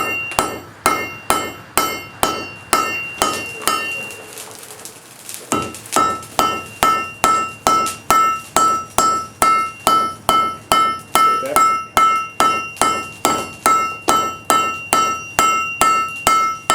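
Hammer blows on hot steel over an anvil, a steady beat of about two to three strikes a second, each blow ringing at one clear pitch. The hammering stops for about a second and a half a few seconds in, then starts again.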